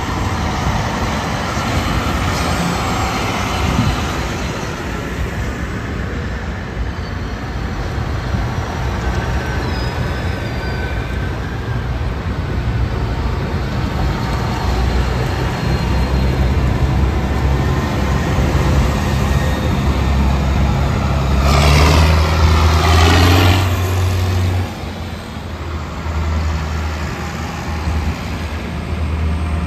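John Deere farm tractors' diesel engines running as they drive past one after another. The sound builds as one tractor comes close, is loudest about three-quarters of the way through, then drops off suddenly.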